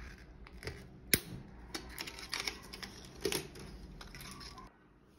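Scissors clicking as they cut the hanging label off a woven storage basket, with knocks from the basket being handled; one sharp click about a second in is the loudest, and it goes quiet shortly before the end.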